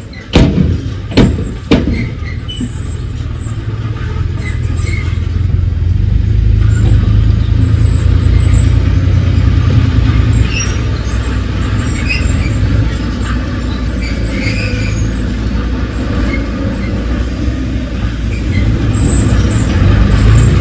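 Heavy earthmoving machine's diesel engine running with a steady low drone, growing louder about six seconds in and again near the end. Three sharp knocks in the first two seconds.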